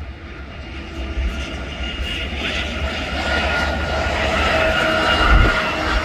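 Diesel freight locomotives running as a train approaches, a heavy low rumble with a steady high whine above it, slowly getting louder.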